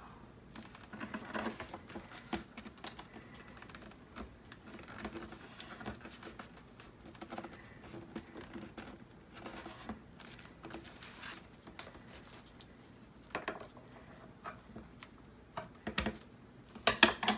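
Faint handling of paper and wide black tape: light scrapes, rustles and small taps as the tape is laid along the edge and smoothed down by hand. Near the end come a few sharp snips of scissors trimming the paper edge.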